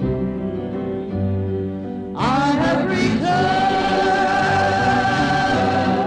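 Gospel song: soft instrumental accompaniment, then a singing voice comes in about two seconds in and holds one long note.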